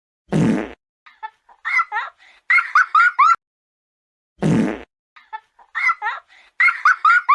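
Cartoon fart sound effect from Pocoyo, heard twice: once just after the start and again about four seconds later. Each fart is followed by a quick run of short, high-pitched, squeaky giggles.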